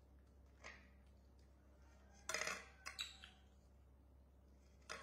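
A plate knocking and scraping against a tiled floor: a faint scrape under a second in, a louder clatter a little past two seconds followed by a couple of clicks, and another near the end.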